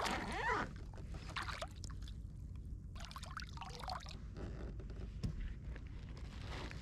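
Sea water splashing beside a kayak as a hooked snapper thrashes at the surface and is lifted out, loudest in the first half-second. Then comes water trickling and dripping off the fish, with small clicks and knocks.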